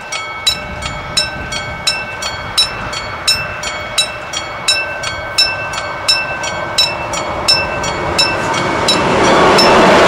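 Level-crossing warning bell ringing in a steady, rapid rhythm of about three strikes a second. From about eight seconds in, a rising rush builds and turns into the loud, steady noise of an electric locomotive and freight wagons passing over the crossing, nearly drowning the bell.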